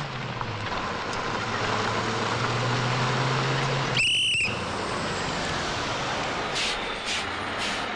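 Bus engine running with road noise, its hum rising a little and then dropping back. A short, shrill whistle cuts in about four seconds in.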